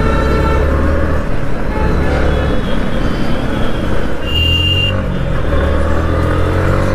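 Yamaha MT-15's 155 cc single-cylinder engine running under way in city traffic, with road and traffic noise. A short high-pitched beep comes about four seconds in, and the engine note rises near the end.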